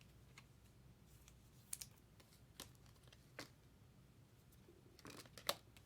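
Faint, scattered clicks and taps, a few isolated ones spaced irregularly and a small cluster near the end, over near silence.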